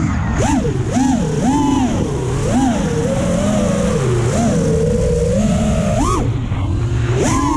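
FPV racing quadcopter's brushless motors whining as it flies freestyle, the pitch swinging up and down with each burst of throttle, steadier for a couple of seconds in the middle and jumping up sharply near the end, over a steady rushing hiss.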